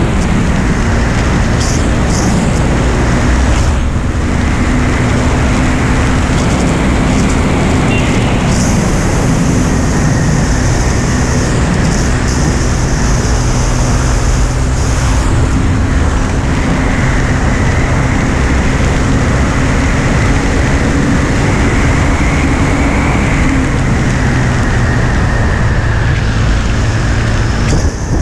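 2017 KTM Duke 390's single-cylinder engine running steadily at speed, mixed with a loud, even rush of wind and road noise on the bike-mounted camera's microphone.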